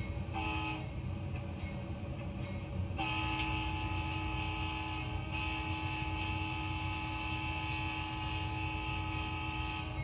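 Locomotive air horn sounding a chord of several tones: a short blast near the start, then a long held blast from about three seconds in, over the steady low rumble of the train running.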